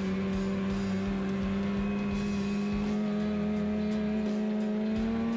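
Polaris snowmobile engine running steadily at trail speed, a constant drone whose pitch rises slightly near the end.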